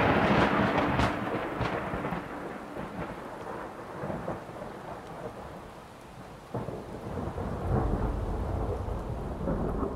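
Thunder and rain: a sudden clap of thunder with crackling at the start that rolls away over a couple of seconds over a steady hiss of rain, then a second low rumble of thunder building about six and a half seconds in.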